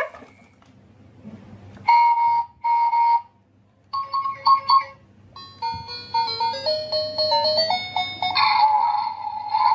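Electronic sound effects from a battery-powered toy cement mixer truck, set off by the buttons on its cab roof: two short horn blasts, a few quick beeps, then a stepped electronic jingle, and near the end a steady tone that carries on.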